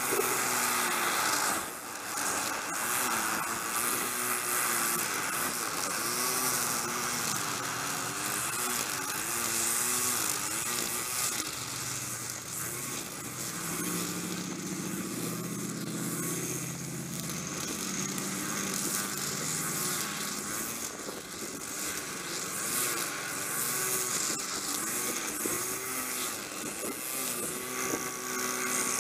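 String trimmer engines running, their pitch rising and falling as the throttle is worked, with the lower hum of passing road traffic in the middle.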